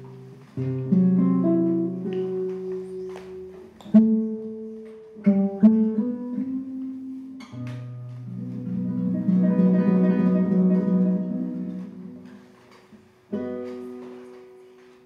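Solo nylon-string classical guitar playing a slow passage of ringing chords, with a denser, rapidly repeated passage that swells and fades about halfway through. A last chord near the end rings out and dies away.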